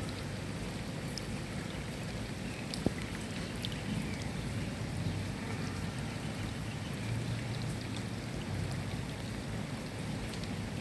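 Steady rain, with individual drops ticking on a surface and one sharper drip about three seconds in. A low rumble underneath grows heavier in the second half.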